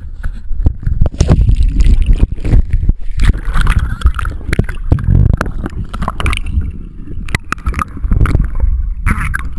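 Waterproof action camera handled and plunged into a swimming pool: a heavy low rumble of water and handling noise on the camera housing, broken by many sharp knocks, with muffled underwater gurgling.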